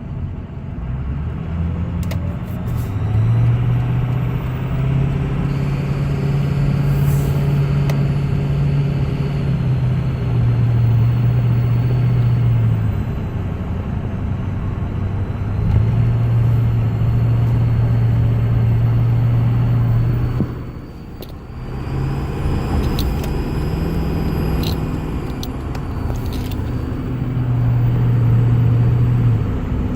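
2005 Ford F-350's 6.0 L Power Stroke V8 turbo-diesel running, its engine note stepping up and down, with a thin, steady high-pitched whine over it. The owner cannot identify the whine; it grew more pronounced after work on the intercooler boots, fuel pressure regulator and glow plugs.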